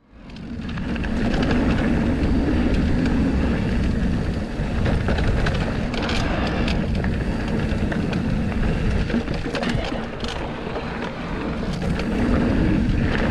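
Riding noise from a 2021 Trek Rail 7 mountain bike on a dirt trail: a steady low rumble of wind buffeting the microphone and tyres on the track, with a few sharp rattles and clicks. The noise fades in over the first second.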